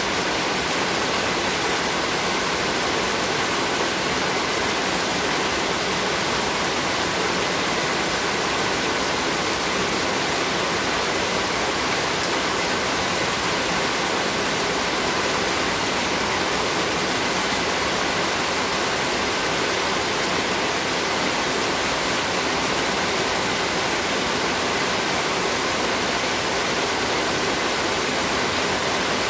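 Heavy rain pouring down steadily: a dense, even hiss of downpour that does not let up.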